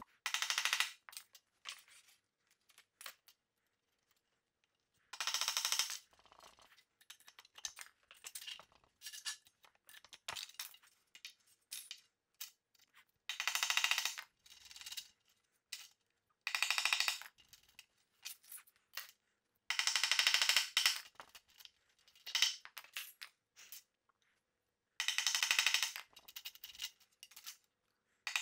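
Hammer driving a nail through thin metal strapping into a wooden board, in six or so short runs of quick metallic taps a few seconds apart, with small clinks and knocks between.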